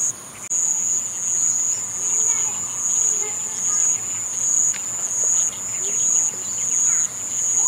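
Insects trilling in a high, steady band that breaks off briefly every so often, with faint short calls underneath.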